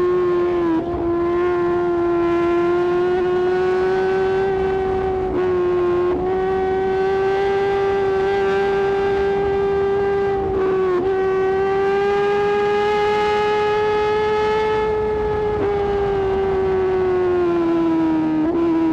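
Suzuki GSX-R1000R's inline-four engine running at high revs at speed: a steady high-pitched whine that dips briefly in pitch about five times and sags lower near the end, over wind rush.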